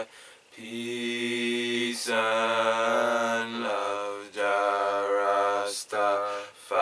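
A male voice chanting without accompaniment in long, steadily held notes, several phrases in a row, each broken off by a short breath.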